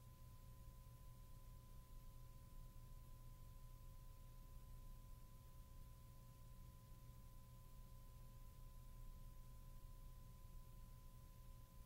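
Near silence: a faint steady low hum with two thin, steady high tones and a faint hiss, the background noise of a blank recording.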